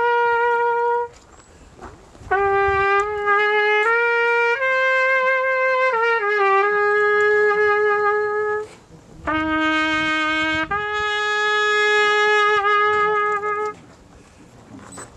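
A solo trumpet plays a slow, solemn call for the dead, a military salute to the fallen. It moves through long held notes, one at a time, with short breaks between phrases.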